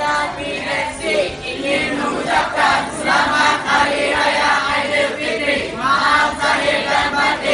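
A large group of people calling out and singing together in unison, in a run of loud group shouts.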